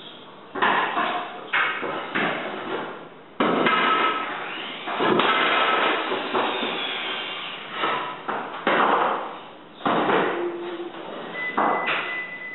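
Hardwood flooring boards being laid out loose on the subfloor: about ten irregular knocks of wood on wood, each trailing off into a short scraping slide.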